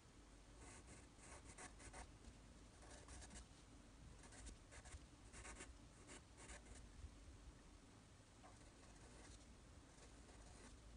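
Faint graphite pencil scratching on paper in bursts of quick short strokes, sketching fur. The strokes grow sparser in the last few seconds.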